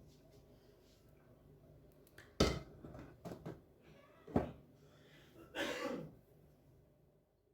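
Kitchenware being handled: two sharp knocks, about two and a half and four and a half seconds in, with light clicks between them and a short rustling scrape near six seconds. A faint steady hum sits underneath and stops near the end.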